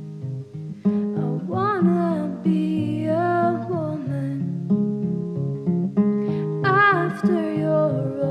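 Slow acoustic guitar accompaniment with a voice singing long, wavering notes over it, coming in about a second in and again near the end.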